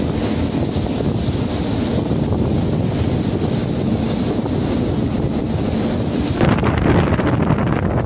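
Strong wind blowing over the microphone with the rush of a rough sea, aboard a ship in a storm. About six and a half seconds in the sound changes abruptly, turning duller and gustier.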